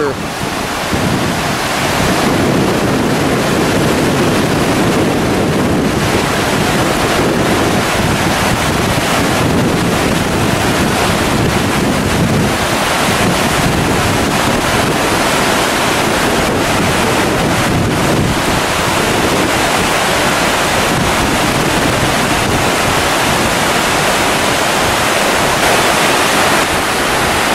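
Fast glacial meltwater river rushing over rocks: a steady, loud wash of water.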